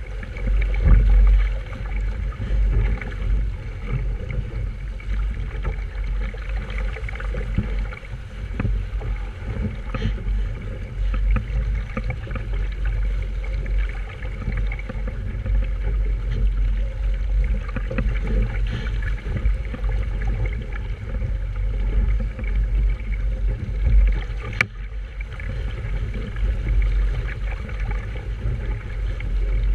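Wind rumbling and buffeting on the microphone over the rush of water along a small sailboat's hull while under way, with a few sharp knocks.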